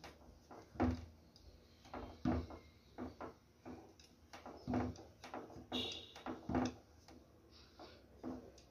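Wooden rolling pin pressing and rolling a thick potato dough sheet on a tabletop, with about seven soft, irregular knocks and thuds as the pin rolls and bumps the surface.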